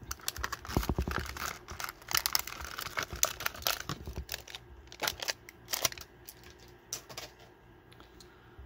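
Plastic packaging, a blister card and a clear plastic bag, crinkling and clicking in rapid irregular crackles as a small die-cast car is worked out of it. The crackling thins to a few scattered clicks after about six seconds.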